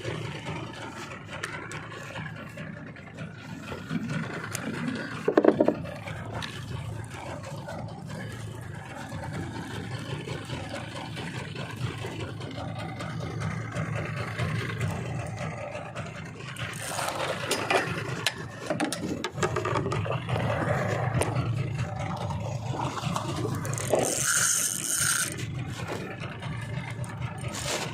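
Fishing reel being wound in with scraping and rattling, over a steady low hum of a boat motor. Knocks come about five seconds in and again near seventeen seconds, and a short hiss follows near the end.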